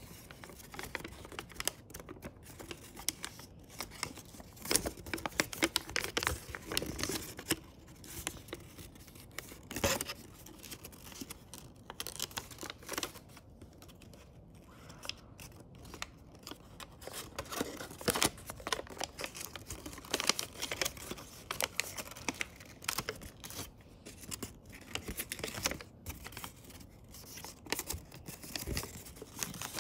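Origami paper crinkling and rustling in quick, irregular crackles as it is folded and creased by hand.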